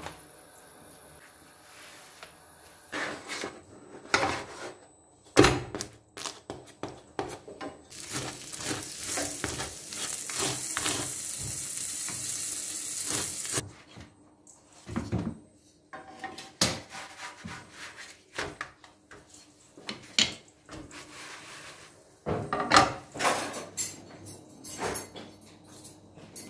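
Flatbread frying in a non-stick pan on a gas stove: a steady sizzle lasting about five seconds midway, amid knocks and clatter of the pan, a wooden cutting board and dishes.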